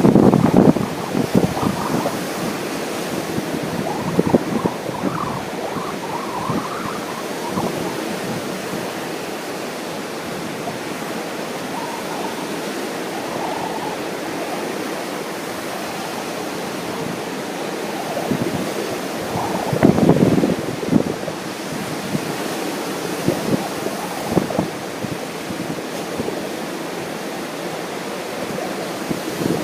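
Steady wash of ocean surf, with wind buffeting the microphone in irregular gusts, strongest at the start and again about two-thirds of the way through.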